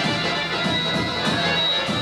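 Dance music with a steady beat and a sustained high melody line.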